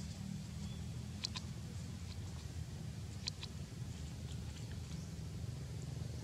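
A baby macaque gnawing on a small stick: two pairs of sharp clicks about two seconds apart, and a few fainter ticks, over a steady low rumble.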